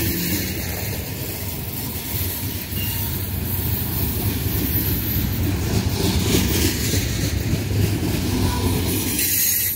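BNSF freight train's bulk freight cars rolling past, a steady rumble and rattle of steel wheels on rail.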